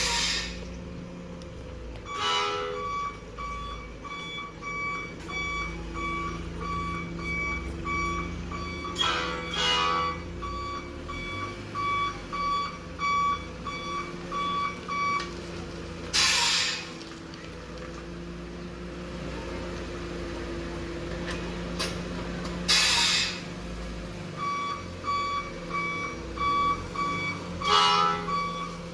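Electronic reversing tone from a 12-volt electric bus horn unit: rapidly repeating beeps that run for about thirteen seconds, stop, and start again about three-quarters of the way through. Several short hisses from the unit's electric air-brake sound fall in between.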